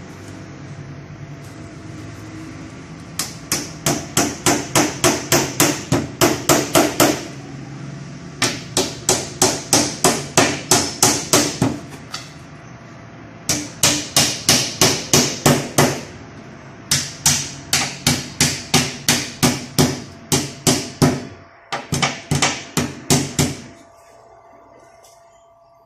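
Small hammer tapping rapidly in runs of several seconds, about four strikes a second, fixing a glass pane into a door frame.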